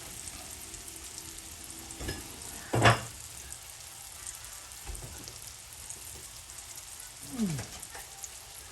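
Bananas sizzling steadily as they fry in a cast iron pan. A sharp knock comes about three seconds in, and a short falling squeak near the end.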